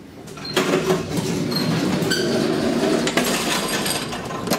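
Elevator car running with a steady rattling, clinking mechanical noise as it arrives and its doors open, ending in a sharp click.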